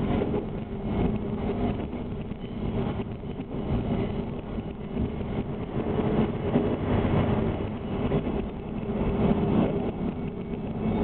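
Tenryū Hamanako Railway diesel railcar under way, its engine giving a steady drone over the noise of the wheels running on the rails.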